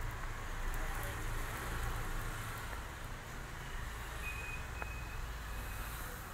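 Steady low rumble of a large potter's wheel spinning while wet clay is shaped on it by hand.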